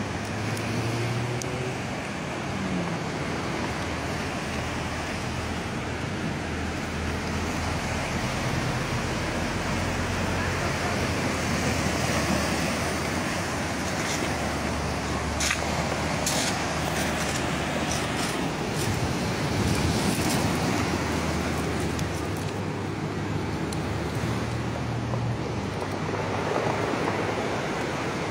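Steady road traffic noise with the low hum of passing vehicle engines, and a few sharp clicks about halfway through.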